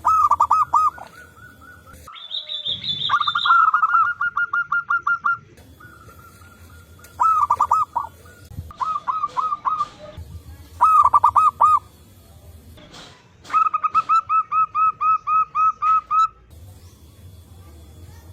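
Zebra doves (perkutut) cooing in repeated phrases of rapid, evenly spaced notes, one phrase after another with short pauses between. About two seconds in, a higher-pitched bird call overlaps.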